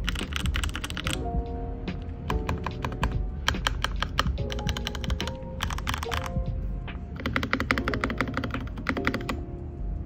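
Typing on a stock aluminium-frame Keychron K6 mechanical keyboard with Gateron Red linear switches: rapid keystroke clacks come in several quick bursts with short pauses between them. Lo-fi music plays underneath.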